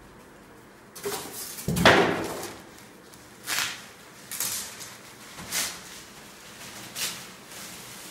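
Packaging being pulled and handled: a long scraping rustle about two seconds in, then four short swishing rustles about a second apart.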